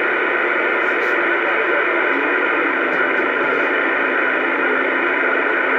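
Bearcat CB radio on AM channel 28 giving out a steady static hiss from its speaker between transmissions, with no voice on the channel. A faint low steady tone joins the hiss about two seconds in.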